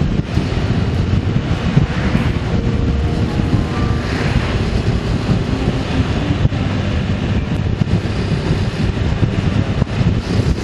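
Steady wind buffeting on the microphone over the low rumble of a moving vehicle on the road.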